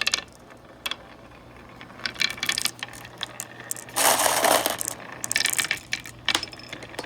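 Marbles clicking and clattering as they roll down a wooden marble-run track. Scattered clicks give way to a dense burst of clatter about four seconds in, then more clicks.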